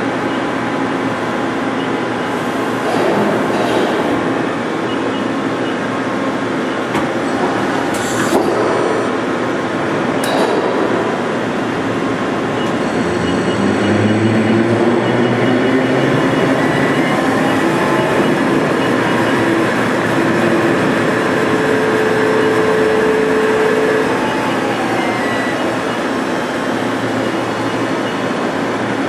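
Mori Seiki SL-25M CNC lathe running under power: a steady mechanical hum with whining tones. About halfway through, the whine rises in pitch as the spindle speeds up. It holds, then falls near the end. Two sharp clicks come a few seconds before the rise.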